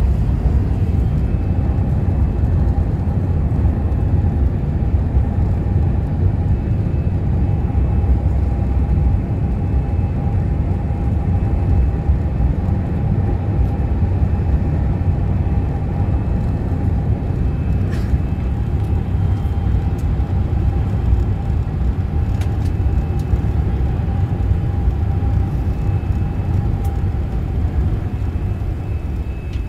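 Steady, loud low rumble inside the passenger cabin of an Airbus A380 rolling along the runway after landing, with a faint steady whine that fades near the end.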